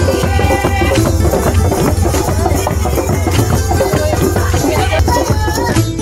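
Background music with fast, busy drumming over a steady bass and a melody line.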